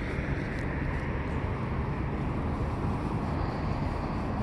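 Steady outdoor background rumble with a low, even hum underneath and no distinct events.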